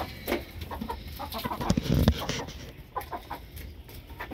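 Hens clucking softly in a coop, with scattered scraping clicks and a loud low thump about two seconds in.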